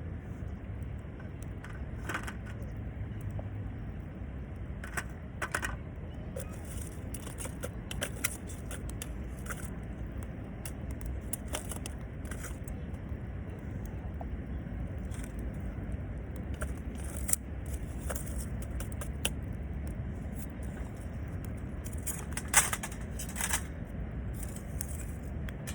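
Wood campfire crackling, with irregular sharp pops and snaps, a louder pop a little before the end, over a steady low rumble.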